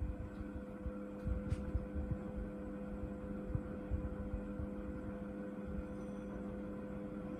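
National F-560A1 56-inch industrial ceiling fan running with a steady motor hum, while its downdraft buffets the microphone with an uneven low rumble.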